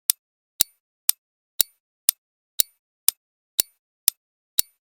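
Quiz countdown-timer sound effect: sharp clock-like ticks, two a second, with silence between them.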